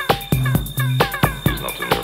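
Electronic dance music from a DJ mix: a steady four-on-the-floor kick drum at about two beats a second, with short bass notes and hi-hats.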